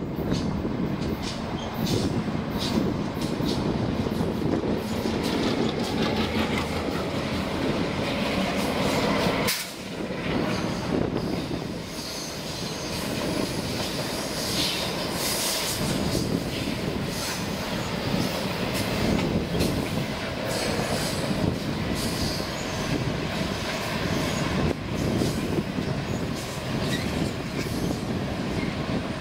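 Canadian Pacific passenger train's cars rolling past on a curve, wheels running steadily on the rails with short clicks over the joints and some intermittent wheel squeal.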